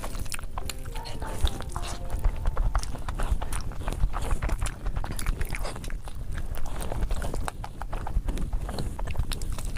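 Close-miked mukbang eating: wet chewing and lip-smacking of a mouthful of saucy chicken, a dense run of sharp wet clicks and squelches, with bites into a sauce-coated chicken piece.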